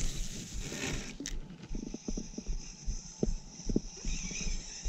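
A cast with a spinning rod and reel, then the reel being cranked to retrieve the lure: a brief whoosh at the start, a sharp click just over a second in, then a steady high whir with light ticks as the line is wound in.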